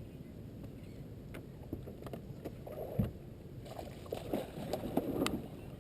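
Water splashing and sloshing around a fishing boat, with a few light knocks and a heavier thump about three seconds in.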